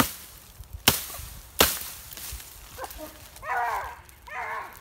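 Three sharp strikes of a Fiskars X15 chopping axe biting into green tree limbs, under a second apart, within the first two seconds, as the limbs are chopped off a felled tree.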